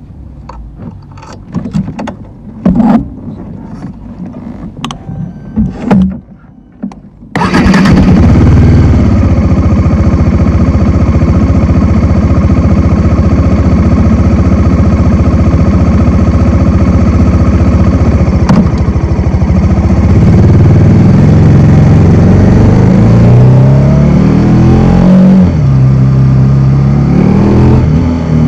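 A few scattered clicks and knocks, then a Bajaj Dominar 400's single-cylinder engine starts suddenly about seven seconds in and idles steadily. In the last several seconds the engine's pitch rises and falls several times.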